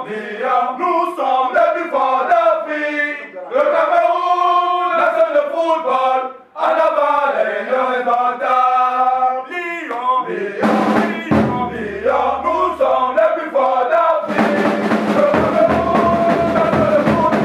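A group of men singing a chant together. About ten seconds in, drums and other instruments join and the music fills out.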